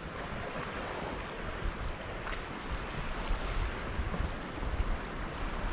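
Ocean waves washing onto a beach, mixed with wind buffeting the microphone in gusts.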